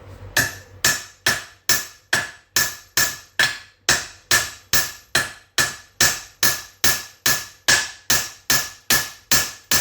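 Steady, evenly paced hammer blows on a 12 mm mild steel stud welded to a steel plate, about two a second, each with a short metallic ring. The stud is being bent over to test the stud weld.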